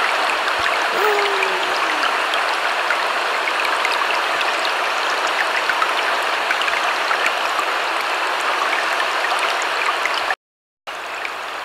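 Steady rushing water, like a gushing flood. It cuts out abruptly for about half a second near the end, then comes back briefly.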